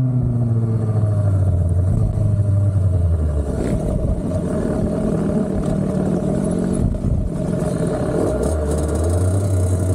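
Kawasaki KX65 two-stroke single-cylinder engine heard onboard, its revs dropping as the bike slows, then running rough at low revs with some clatter while it rolls slowly, and picking up to a steady note again near the end.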